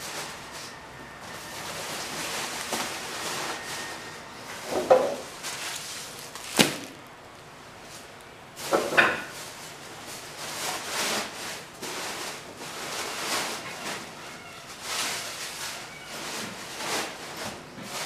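Household containers and packets being handled and set down: scattered rustling and clattering, with louder thuds about five and nine seconds in and a sharp knock between them.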